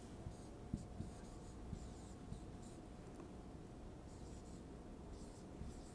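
Faint scratching and squeaking of a marker writing on a whiteboard, in short separate strokes.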